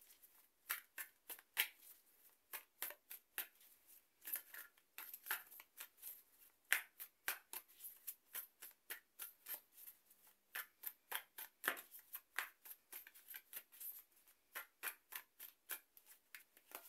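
A tarot deck being shuffled by hand: a steady run of quick card snaps and flicks, several a second.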